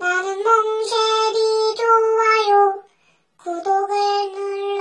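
A high, childlike singing voice holding long notes in two phrases, with a short break about three seconds in.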